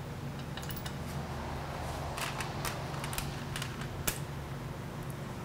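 Small steel hardware (bolts and grease fittings) clicking and clinking as it is picked through by hand on a wooden tray: a scattered run of light ticks, the sharpest about four seconds in, over a steady low hum.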